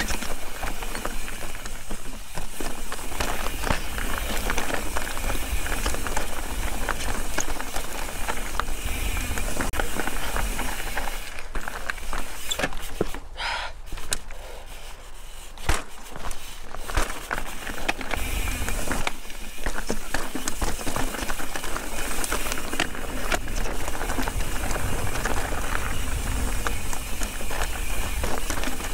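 Ibis Ripmo v2 mountain bike rattling and clattering down rocky trail: a steady run of knocks and crunches from tyres and suspension over loose rock, easing off for a few seconds about halfway through.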